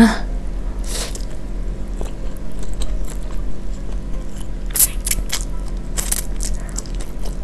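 Close-up slurping and chewing of instant fried noodles, with wet mouth noises. There is a burst of slurping about a second in, and more slurps near five and six seconds in.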